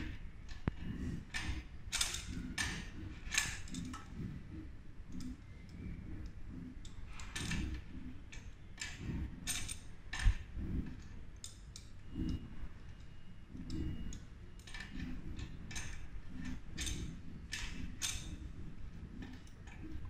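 Irregular metallic clicks and taps of a wrench and hardware being worked at the rear axle of a Cyrusher XF800 fat-tire e-bike's hub-motor wheel, over low handling noise, with one dull thump about halfway through.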